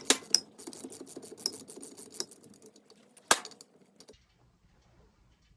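Ratchet with a 14 mm hex bit clicking rapidly as a threaded access plug is spun out of an engine block, then a single sharp metallic clink.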